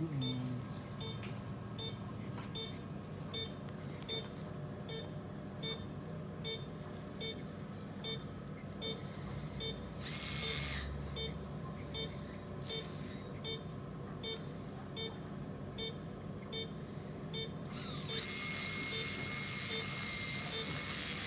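Anaesthesia monitor beeping steadily, about three beeps every two seconds, in time with the anaesthetised dog's pulse. A dental scaler handpiece whines briefly about ten seconds in, then runs with a steady high whine and hiss from about eighteen seconds on.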